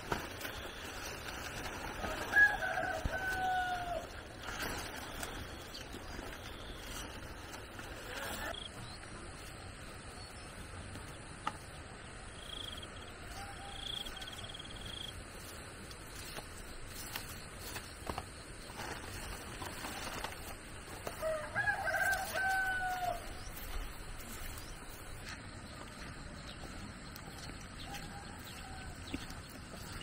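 A rooster crowing twice, once a couple of seconds in and again about two-thirds of the way through, each crow a drawn-out call that dips in pitch at the end.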